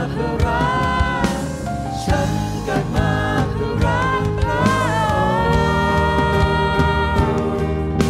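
Live worship music: a church worship band playing, with sung melody held on long notes over a steady drum beat and bass. One long note is held from about five seconds in.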